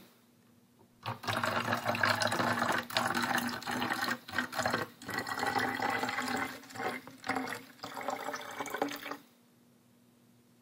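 Rainwater poured from a spouted cup into the narrow neck of a plastic bottle: a stream of water starting about a second in, with a few short breaks, then stopping suddenly near the end.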